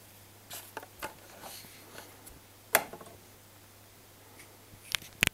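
A kitten playing with a cardboard paper towel tube makes scattered scratches and rustles and a few sharp taps and clicks. The loudest tap comes about three seconds in, and a quick cluster comes near the end.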